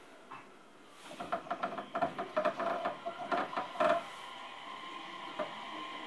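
Cabin of a stationary E231-series commuter train: a steady electrical hum from the car's equipment, broken from about a second in to about four seconds in by a rapid, irregular clatter of clicks with a ringing tone.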